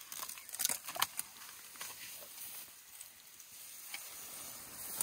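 Elephants browsing an acacia tree: leaves and thorny twigs rustling as trunks pull down the branches, with a cluster of sharp cracks and snaps about a second in.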